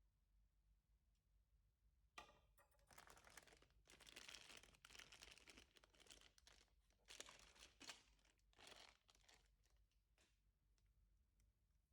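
Packaging being handled during an unboxing: plastic or paper wrapping crinkling and rustling in a string of bursts that starts about two seconds in and dies away after about seven seconds.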